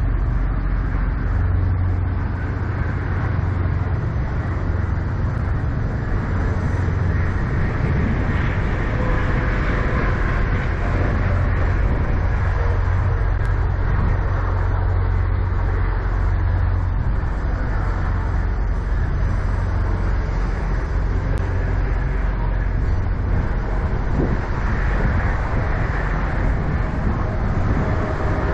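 Semi-truck diesel engine idling: a steady, unbroken low rumble.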